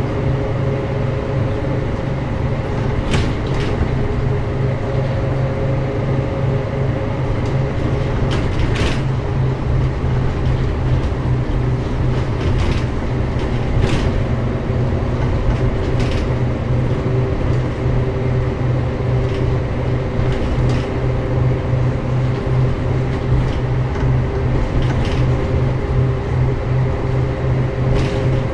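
Mercedes-Benz O405GN² articulated bus engine running at a steady, unchanging pitch with a strong low hum. Scattered sharp clicks and knocks sound now and then.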